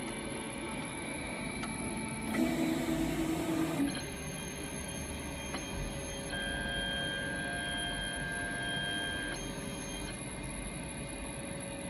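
3D printer running with a steady fan hum. Its stepper motors buzz through a short axis move about two and a half seconds in, and a higher steady whine sounds from about six to nine seconds in.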